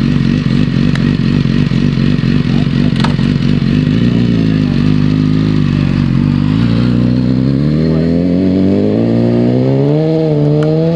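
BMW S1000RR's inline-four engine held at steady revs at the start line, then from about four seconds in pulling away, its pitch climbing steadily as the bike accelerates.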